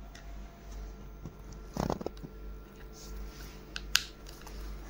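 Small plastic toy truck parts being handled and pressed together: soft scraping with a cluster of clicks about two seconds in and one sharp click about four seconds in.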